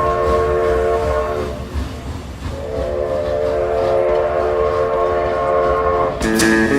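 Train whistle blowing two long, chord-like blasts, the second longer, over the low rumble of a rolling train. Plucked guitar strings come in just before the end.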